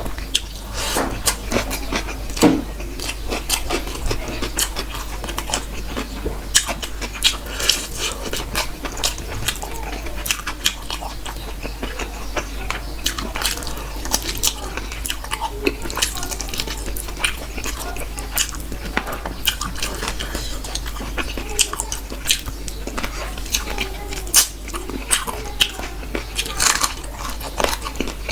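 Close-miked mukbang eating: a person biting and chewing food, with wet mouth clicks and smacks coming in quick, irregular bursts.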